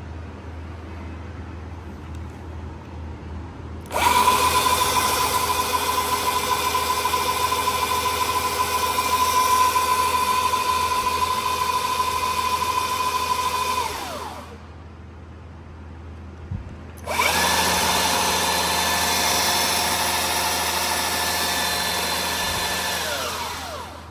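Makita BS001G 40Vmax cordless brushless belt sander switched on twice, running free off the work. It starts abruptly, runs steadily for about ten seconds and winds down. After a short pause it starts again with a different pitch and winds down near the end.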